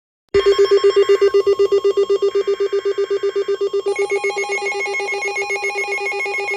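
Emergency alert tones for a tornado warning start abruptly out of silence: a loud, rapidly pulsing alarm tone, with two short bursts of data-like screeching from the alert header over it. About four seconds in, a second, higher tone joins.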